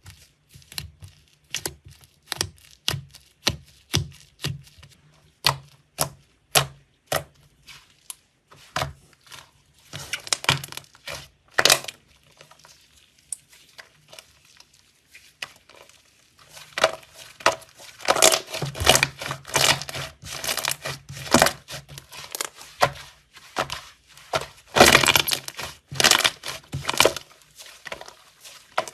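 Slime being squeezed and poked, making a run of sharp pops about two a second. After a quieter stretch it turns to dense crackling from about halfway on.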